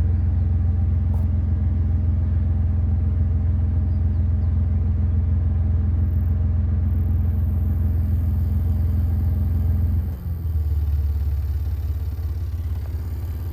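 Car subwoofers, driven by an Incriminator amplifier, playing a steady low bass tone while the amplifier gain is turned up toward clipping. About ten seconds in, the tone dips and shifts, and its higher overtones drop away.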